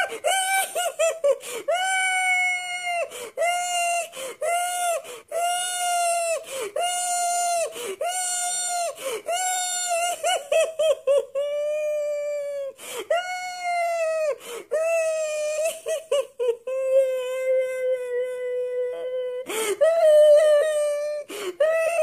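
A grown man crying like a baby, his voice pitched up high: a string of wavering wails about a second each. Longer held wails come in the middle and again after about sixteen seconds, then short sobbing wails resume near the end.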